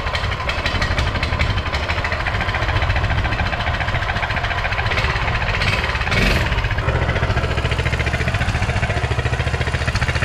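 Coleman CT200U minibike's 196cc single-cylinder engine idling steadily through its stock muffler, just after being started.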